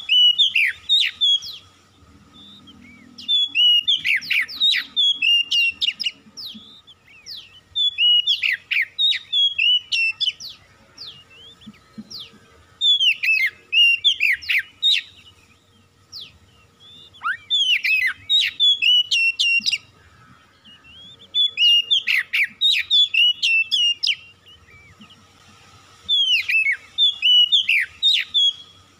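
Oriental magpie-robin in full song: bouts of loud, clear whistled phrases with quick downward-sliding notes, each about two seconds long and coming about every four seconds, with short pauses between.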